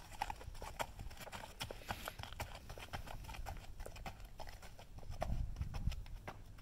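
Hooves of a walking horse clip-clopping on frozen dirt: a steady run of short, sharp footfalls. A low rumble rises briefly about five seconds in.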